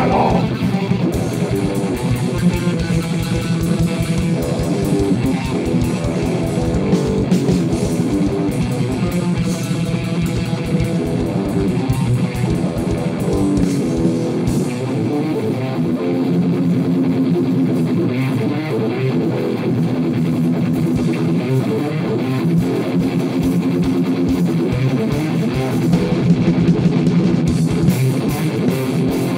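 Live heavy metal band playing loud distorted electric guitar riffs over fast drums, with no vocals and no bass player. The deepest drum hits thin out about halfway through and return near the end.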